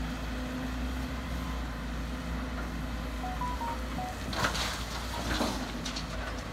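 Sumitomo SH210 excavators' diesel engines running steadily, with two loud rushes of laterite soil poured from the bucket into a steel dump-truck bed, about four and a half and five and a half seconds in.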